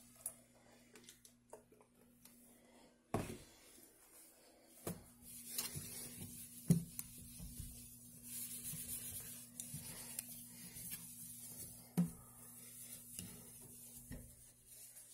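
Cleaning a stainless steel kitchen sink: a soft rubbing hiss from about the middle on, with scattered knocks and taps on the metal. A steady low hum runs underneath.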